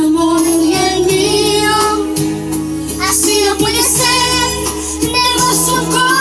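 Karaoke backing music playing, with a young girl singing along into a microphone.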